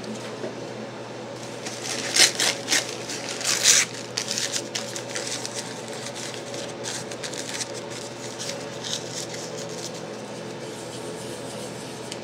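Paper coffee filter crinkled and rustled by hand, loudest in a few sharp bursts about two seconds in, then softer rustling and rubbing as the paper is folded and wiped across a processor's metal lid.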